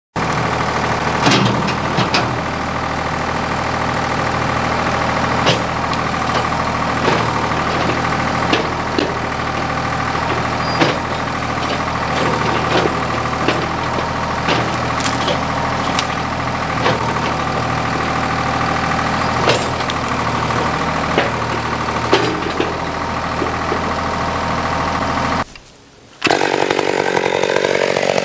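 Diesel engine of heavy machinery running steadily, with sharp cracks and snaps scattered over it. Near the end the sound cuts out for a moment, and a different engine starts revving.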